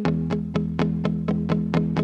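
Music of quick, evenly repeated plucked notes, about six a second, over steady low tones.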